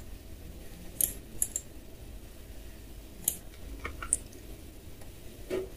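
Computer mouse and keyboard clicks, a dozen or so short sharp clicks, some in quick pairs, over a low steady hum.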